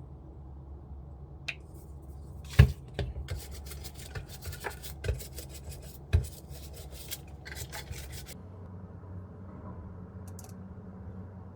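Handling of a waffle maker and the pastry in it: a sharp clack about two and a half seconds in, then a few seconds of quick scraping and crackling, and another clack about six seconds in, over a low steady hum.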